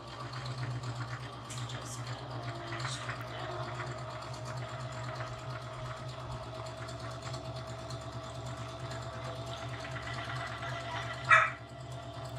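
Domestic electric sewing machine running steadily, stitching a straight seam. About eleven seconds in, a brief loud high-pitched yelp cuts across it.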